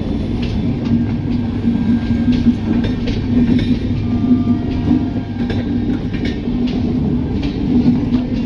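Passenger coaches of an arriving Indian Railways express rolling past: a steady heavy rumble with irregular clacks of the wheels over rail joints.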